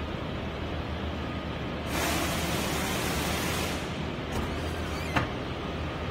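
Steady low hum of factory machinery with a constant noise over it. A higher hiss swells in about two seconds in and fades out about two seconds later, and a single sharp click comes near the end.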